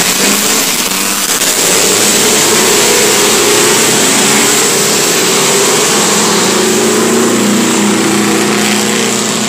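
Several classic 500cc racing motorcycles running loud as they pull away from the start, their engine notes rising and falling over one another.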